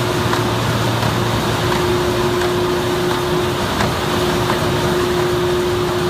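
Martin 1636 flexo folder-gluer line and its stacker running in a corrugated box plant: a loud, steady machinery din with a steady mid-pitched whine that breaks off briefly twice, and faint clicks.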